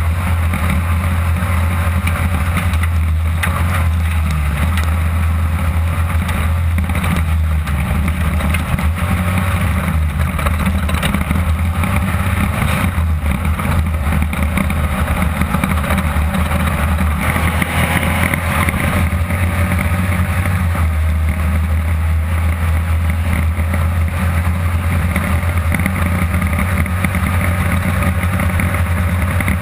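Interior sound of a class 2-1600 desert race buggy with its air-cooled Volkswagen 1600 cc engine under steady load at racing speed, mixed with wind and chassis noise and a few knocks from the rough terrain.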